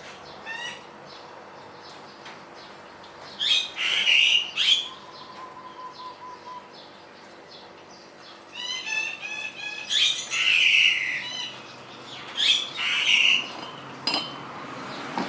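A bird calling: several loud, harsh squawks, with a rapid chattering run about halfway through.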